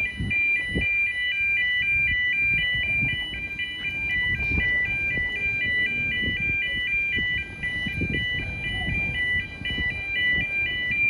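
Level crossing warning alarm sounding a steady two-tone warble, its pitch flipping back and forth about four times a second, the warning that a train is about to cross the road. Low, gusty rumbling lies underneath.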